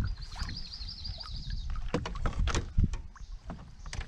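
Canoe being paddled: water splashing and dripping off the paddles, with scattered knocks against the aluminium hull. A high, wavering birdsong trill sounds for about the first second and a half.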